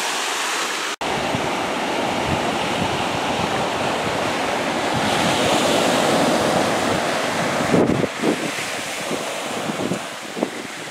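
Small surf breaking and washing up on a sandy beach, with wind buffeting the microphone. The sound drops out for an instant about a second in and is somewhat quieter and gustier in the last few seconds.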